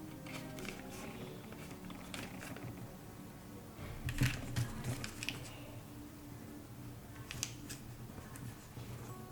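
Sheet of origami paper being handled and folded: short crinkles and crisp ticks as the paper is bent and creased, busiest about four to five seconds in and again near seven and a half seconds.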